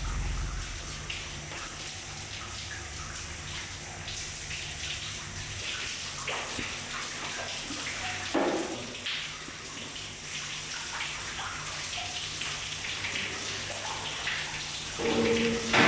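Steady hiss of running water, with a faint low hum underneath.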